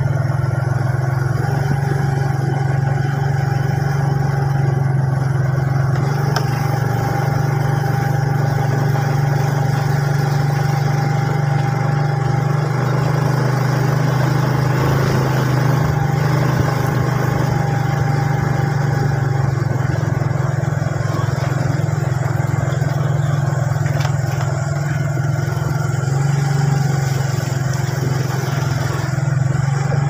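Motorcycle engine running at a steady cruise, heard from the rider's seat with road and wind noise. The engine note stays even throughout, with no revving or gear changes.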